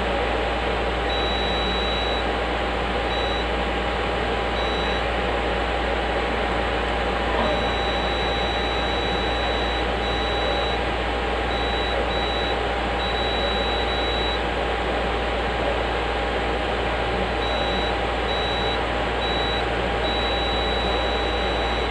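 Digital multimeter's continuity beeper giving high beeps, some short and some held for a second or two, as the probes are touched to points on a graphics card being checked for a short circuit. A steady fan hum runs underneath.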